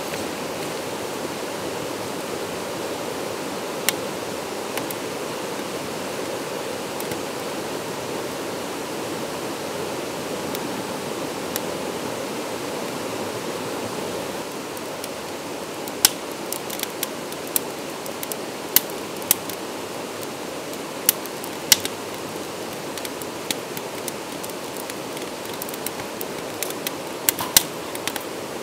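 Stream rushing over rocks in a steady wash of water. A wood fire in a small steel fire pit crackles and pops with sharp snaps, few at first and many in the second half, where the water is a little quieter.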